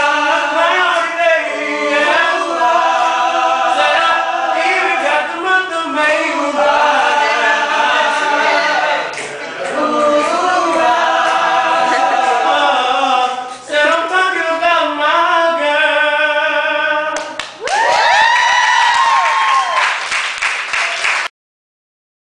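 A small group of mixed voices singing a cappella, several parts in harmony. Near the end the singing gives way to a few seconds of swooping tones that rise and fall, and the sound cuts off suddenly.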